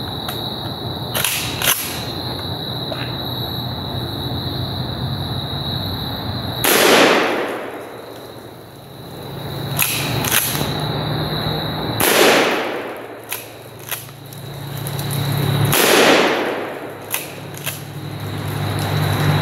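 A 12-gauge Benelli Nova pump-action shotgun firing three shots a few seconds apart, each boom ringing out over a second or two. Between the shots come pairs of sharp clicks, the pump being racked back and forward to chamber the next shell. Crickets hold a steady high trill underneath.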